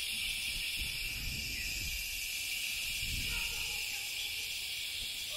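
Garden hose spray nozzle showering water over the soil and leaves of a raised vegetable bed: a steady hiss that cuts off suddenly at the very end.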